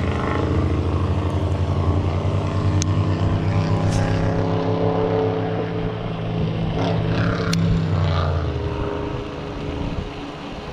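An engine running at a steady pitch, fading out about eight and a half seconds in, with a few sharp clicks over it.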